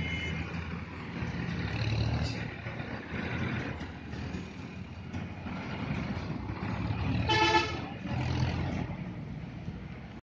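Road traffic rumbling past with engine noise. A vehicle horn honks once, briefly, about seven seconds in, the loudest sound.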